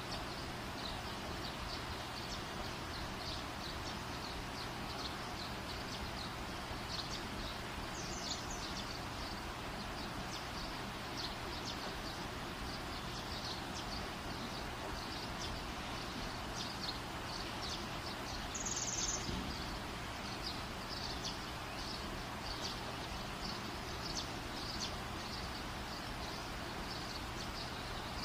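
Steady background noise with a low hum, and faint, short high chirps scattered throughout. A brief, slightly louder sound comes about nineteen seconds in.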